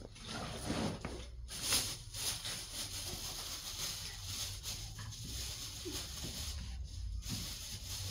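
Thin plastic grocery bags rustling and crinkling as they are handled and unpacked.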